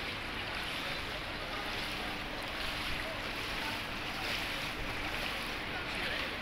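Floodwater sloshing and swishing around the legs of someone wading slowly through it, in an even wash with a few louder surges.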